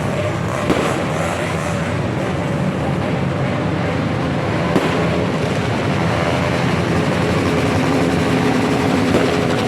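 Steady din of a large crowd mixed with the low rumble of motor traffic, with two short sharp cracks, about a second in and near the middle, typical of fireworks.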